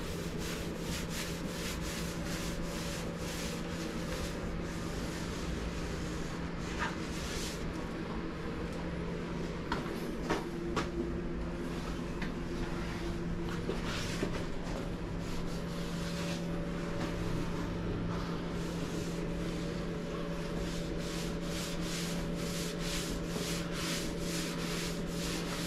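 Sticky tack cloth wiped over a primed car door panel, a long run of short rubbing strokes, over a steady low hum.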